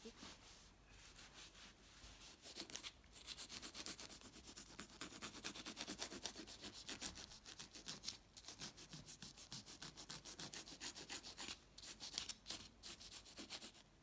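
Nail file rasping back and forth across fingernails in quick, even strokes, starting a couple of seconds in and stopping just before the end.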